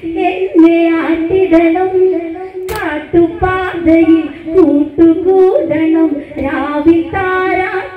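Women singing an Onamkali song in Malayalam, with a sharp crack about three seconds in.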